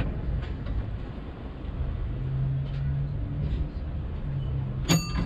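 A stationary heritage tram giving a steady low hum. Near the end come two sharp, ringing metallic strikes, like the tram's signal bell.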